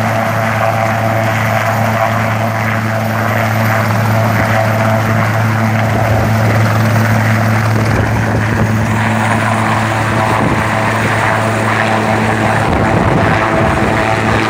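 Sikorsky S-76 twin-turbine medical helicopter running at flight rpm on the ground, with a steady rotor hum and turbine whine. About two-thirds of the way in the power comes up and the sound grows fuller and rougher as it lifts off into a hover.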